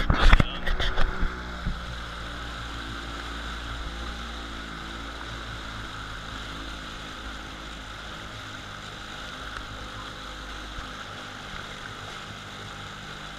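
Jet ski engine running at a steady speed, with water and wind noise. A few loud thumps come in the first two seconds.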